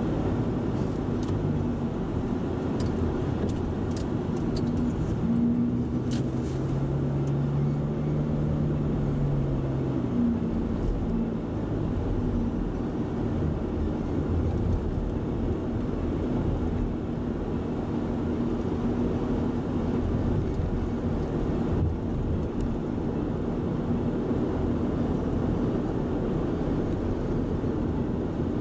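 Toyota Voxy minivan driving, with a steady low rumble of road and engine noise. An engine hum swells and shifts in pitch between about five and ten seconds in.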